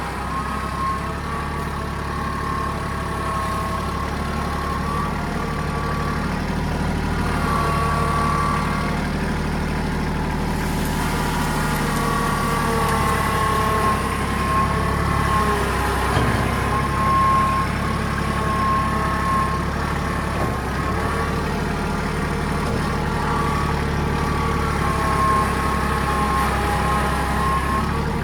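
A farm vehicle's engine running steadily at low speed, a constant low drone with no breaks.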